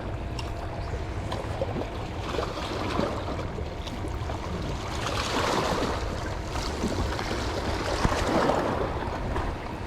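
Sea water washing and lapping along the shore, swelling about five seconds in and again near the end, over a steady low rumble.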